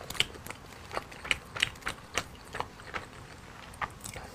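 Irregular crisp clicks and crackles of a cooked starfish's hard, spiny shell being pulled apart by hand and chewed, a few cracks a second.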